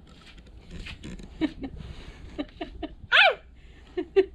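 Small puppy barking and yipping at a passer-by: several short yaps, with one louder high yelp that falls in pitch about three seconds in.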